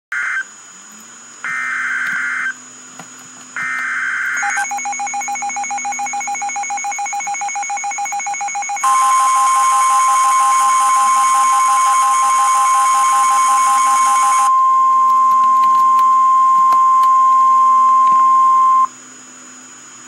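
Emergency Alert System flash flood warning: three short screeching data bursts, then a rapidly pulsing alert tone, then a loud steady alert tone lasting about ten seconds, harsh and buzzy for its first half.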